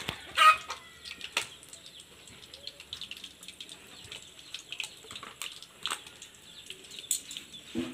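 Hot cooking oil in a pan deep-frying battered quail eggs (kwek-kwek), bubbling with scattered small crackles and pops. A brief high squeak stands out about half a second in.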